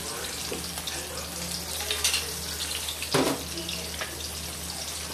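Two whole tilapia frying in oil in a wok, a steady sizzle thick with fine crackles. A single sharp metal clank about three seconds in.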